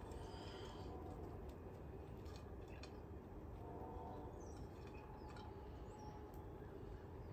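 Quiet background: a faint steady low hum with a few faint, short high chirps.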